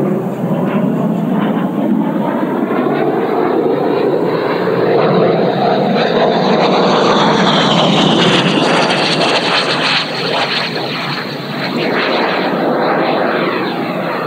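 JETFAN-130 electric ducted fan on a TOPRC Odyssey RC jet making a fast low pass: a loud rush with a high fan whine that builds to a peak in the middle and drops in pitch as the jet goes by. It eases off, then swells again near the end as the jet comes round.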